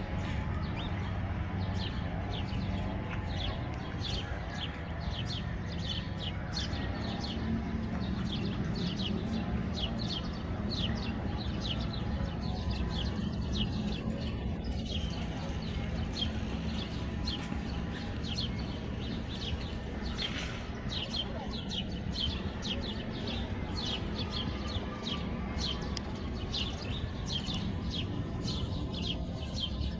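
A flock of sparrows chirping continuously: many short, quick chirps tumbling over one another, over a steady low rumble.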